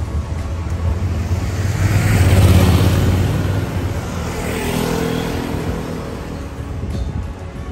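Motor vehicles passing close by on a city street. One passes loudest about two and a half seconds in, and a second, with an audible engine hum, passes around five seconds in.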